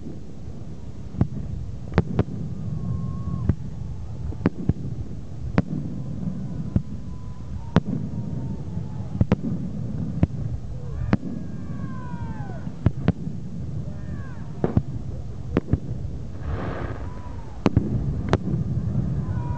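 New Year's fireworks going off: scattered sharp bangs at irregular intervals, some whistles that fall in pitch, and a brief buzzing crackle about three-quarters of the way through, over a steady low rumble.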